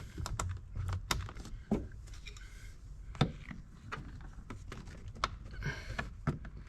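Plastic speaker cover being pried off a Porsche 993 door trim panel with a trim tool: irregular clicks, ticks and knocks of the clips and plastic under strain, with a brief scraping rub near the end.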